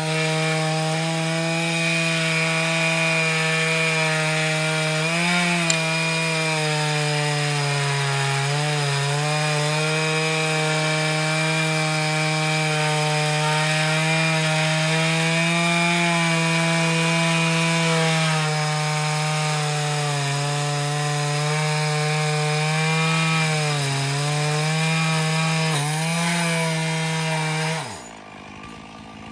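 Chainsaw on an Alaskan chainsaw mill ripping lengthwise through a log at full throttle, a steady high engine note whose pitch dips briefly several times. Near the end the engine note drops away sharply to a much quieter level.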